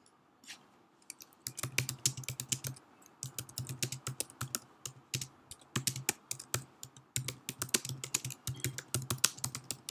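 Typing on a computer keyboard: quick runs of keystroke clicks with short pauses between words, starting about a second and a half in.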